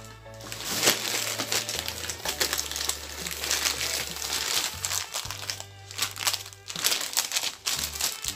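Plastic packaging crinkling and rustling in irregular bursts as hands rummage through a bag of empty wrappers for the next item.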